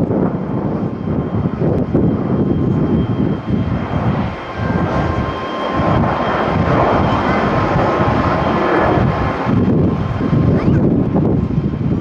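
Boeing 737-800's two turbofan jet engines running at takeoff thrust as the airliner lifts off and climbs away: a loud, steady jet roar with a faint whine over it. Strong gusts buffet the microphone throughout.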